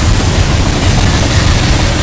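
Coal train rolling past at close range: a steady, loud rumble of steel wheels on rail with no horn.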